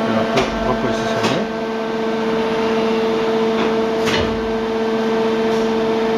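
Tsugami MA 5.5FP machining center running: a steady motor hum with a few short knocks from the machine, three of them.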